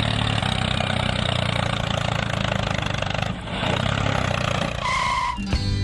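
An engine running steadily, with a brief dip about three seconds in. Near the end comes a short beep, and then music starts.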